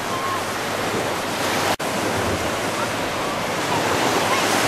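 Surf breaking on a reef and small waves washing ashore: a steady rush of water, with a brief dropout about two seconds in and a few faint whistled notes above it.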